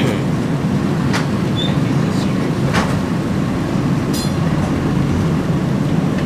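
Hawker Siddeley CLRV streetcar running along the track, heard from inside the car: a steady low rumble of wheels and running gear, with a couple of sharp clicks and a brief high ringing tone about four seconds in.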